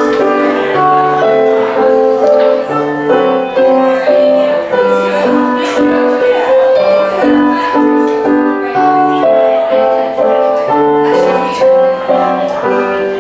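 Live keyboard music: a melody over chords, played as a steady run of evenly held notes.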